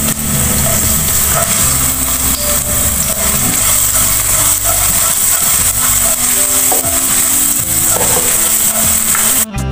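Chopped garlic sizzling in hot oil in a wok as a spatula stirs it, a steady high hiss. It cuts off abruptly near the end.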